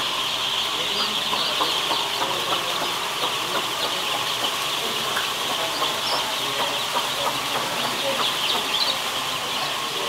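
Dense, steady chorus of hundreds of day-old chicks peeping in a brooding shed, countless short high cheeps overlapping into a continuous din.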